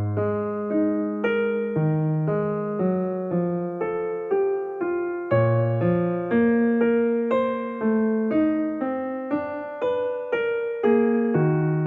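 Background piano music: a gentle melody of notes struck about twice a second over lower bass notes.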